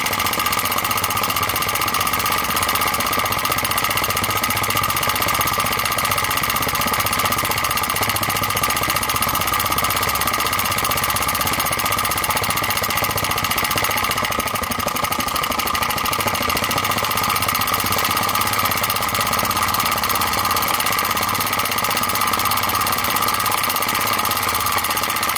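Enjomor flame-licker (vacuum) engine, a steel piston in a brass cylinder, running fast and steady on a naked spirit-burner flame. It makes an even, rapid mechanical rhythm that holds unchanged, the sign of an engine running smoothly at speed.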